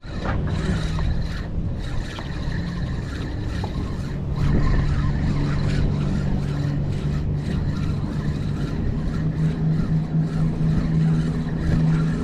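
An engine running with a steady low drone that grows louder about four seconds in and again near the end, with light clicks and knocks over it.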